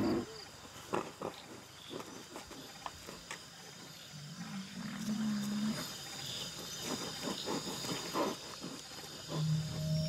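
Greater one-horned rhinoceros mother and calf grazing at night, with irregular crunching and tearing of grass. One of them gives a short low call about five seconds in. Music comes in near the end.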